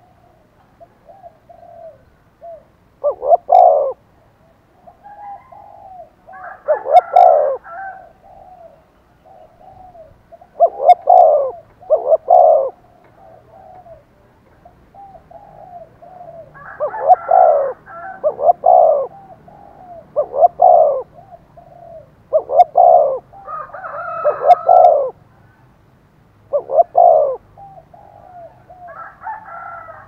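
Spotted dove cooing loudly in short repeated phrases, about one every two seconds, with fainter cooing running between them. It is a caged decoy calling to provoke wild spotted doves into cooing back.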